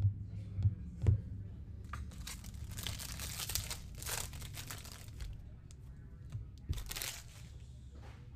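A few sharp knocks in the first second, then a foil trading-card pack wrapper crinkling and tearing as it is ripped open, with a second, shorter crinkle near the end.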